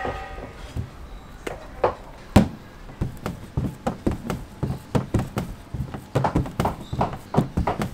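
Wooden rolling pin knocking and clacking on a stainless-steel counter as dough is rolled out, with one sharp knock a couple of seconds in and a quicker run of about four taps a second near the end.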